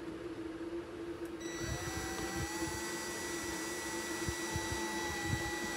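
Cordless drill/driver motor running steadily for about four seconds, driving a screw up through the cabinet into a butcher block countertop, starting about a second and a half in and stopping near the end.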